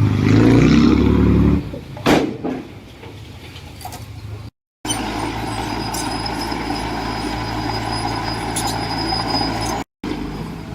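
Heavy diesel construction machinery running: the engine is loud for the first second and a half, with a short sharp hiss about two seconds in. After a cut, an engine runs steadily.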